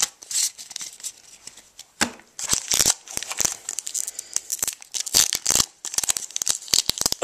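Foil Pokémon trading card booster pack being torn open by hand: irregular crinkling and ripping of the wrapper, mostly from about two seconds in.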